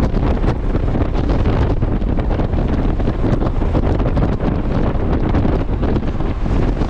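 Steady wind rush buffeting the microphone from riding a Honda Gold Wing GL1500 motorcycle at road speed, with the bike's engine and tyre noise underneath.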